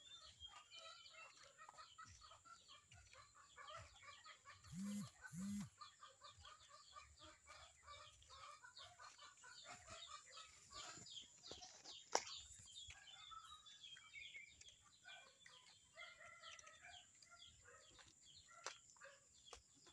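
Chickens clucking faintly and steadily, with a rooster crowing. About five seconds in there are two short, louder low-pitched sounds.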